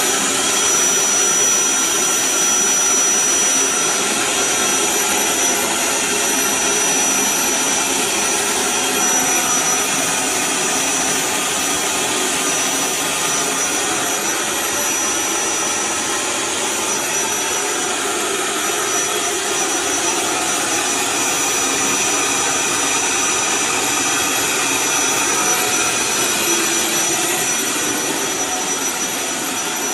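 Eureka 3670G canister vacuum cleaner running steadily: a loud rush of air with a thin, steady high-pitched whine from the motor.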